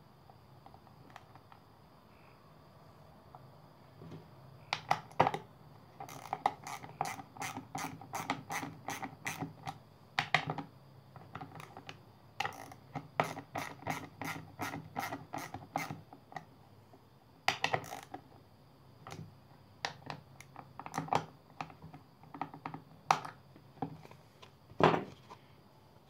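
Screws being driven by hand to fasten a microwave turntable motor to a wooden base, with runs of quick clicks and scraping strokes from about four seconds in.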